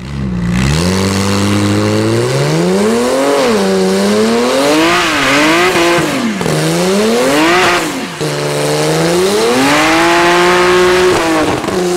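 Modified BMW 3 Series estate's engine revving hard during a burnout, its pitch climbing and dropping again and again, with a hiss of spinning tyres swelling at several of the peaks.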